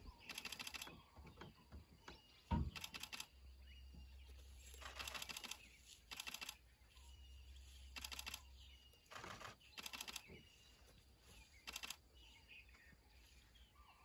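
Camera shutters firing in rapid continuous-shooting bursts, about eight runs of fast clicks, each under a second long, spread through the quiet, with one soft thump about two and a half seconds in.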